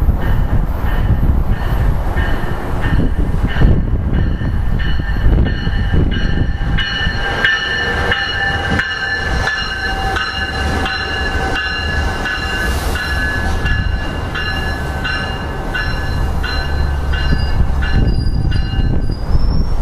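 New Jersey Transit MultiLevel double-deck commuter train passing on the near tracks: a steady low rumble of wheels on rail, with several steady high-pitched tones over it through most of the pass and a string of regular clicks as the cars roll over the rail joints.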